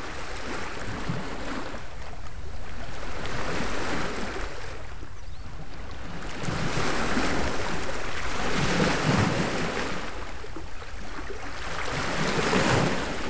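Small waves washing against a rocky shore. The wash swells and falls back every few seconds.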